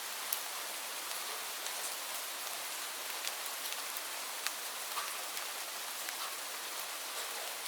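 Steady rain falling, an even hiss with scattered sharper drips and ticks of single drops.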